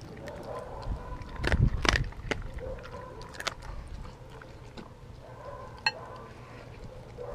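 A Doberman biting and chewing raw meat from a glass bowl: irregular wet chomps and crunches, loudest about one and a half to two seconds in, with a single sharp click near six seconds.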